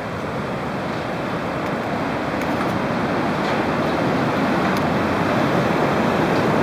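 Rushing whitewater of the Imja Khola river in the gorge below the bridge, a steady noise that grows gradually louder.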